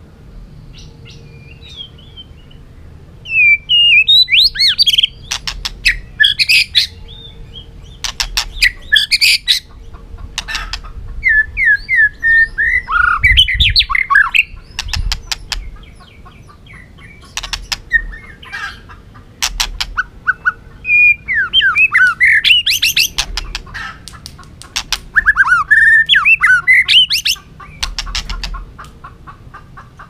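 White-rumped shama singing in loud bursts of varied, quickly rising and falling whistled phrases, mixed with sharp rapid clicking notes, with short pauses between the bursts.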